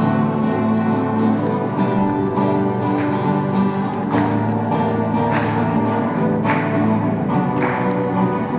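Instrumental music with held notes, joined from about three seconds in by a regular accented hit a little over a second apart.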